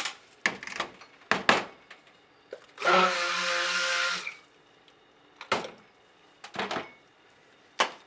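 Hand-held stick (immersion) blender running in one short burst of about a second and a half, a steady motor hum. Scattered knocks and clicks of utensils and containers being handled come before and after it.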